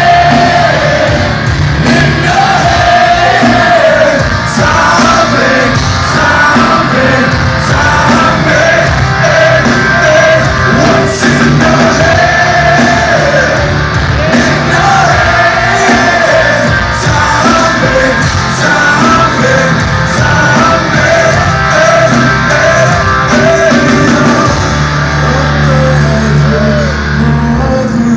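Loud live rock band performing a song with sung lead vocals, heard from within the concert crowd.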